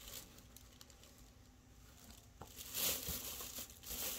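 A short crinkling rustle, as of something being handled, starting about three seconds in, with a single click just before it.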